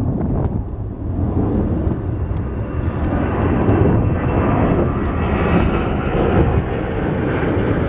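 Heavy jet airliner's engines, a steady deep rumble with a hiss that grows stronger from about three seconds in.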